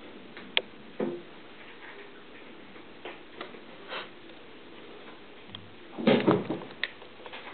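Kittens' paws landing and scrambling on cat-tree platforms and posts: scattered light taps and clicks, a thump about a second in, and a louder flurry of knocks about six seconds in.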